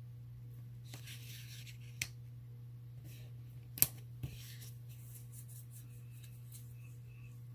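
Paper stickers being handled and pressed onto planner pages: a short papery rustle about a second in, then a few light taps and clicks, the sharpest just before the midpoint. A steady low hum runs underneath.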